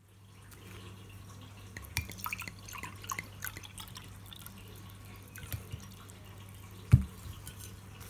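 White wine poured from a glass bottle into a glass tumbler, splashing and dripping, then a sharp knock near the end, the loudest sound, as the bottle is set down on the table. A steady low hum runs underneath.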